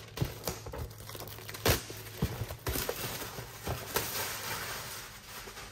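Clear plastic shrink wrap crinkling and tearing as it is pulled off a cardboard box, with a few sharp crackles.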